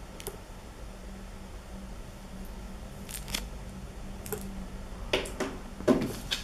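Light clicks and rustles of a USB cable and box contents being handled, a few scattered ones, then a louder cluster near the end, over a faint steady low hum.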